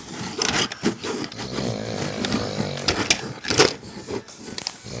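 A man snoring with a rattling, helicopter-like snore.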